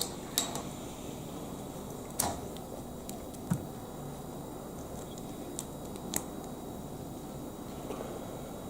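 Plastic Lego Technic pieces clicking and knocking as they are handled and pressed together, about six sharp clicks spread irregularly over a steady low hum, one of them a duller knock.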